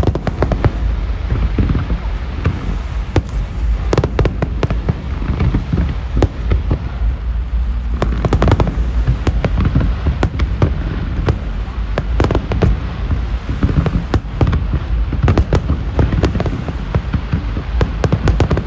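Aerial fireworks display going off continuously: a rapid, irregular barrage of booming shell bursts and sharp cracks over a steady low rumble.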